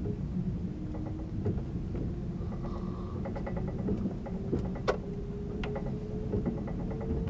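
Inside a 583-series electric sleeper car above a motor bogie: a steady rumble of wheels on rail with scattered sharp clicks from rail joints, and a faint traction-motor whine that rises slowly in pitch as the train gathers speed.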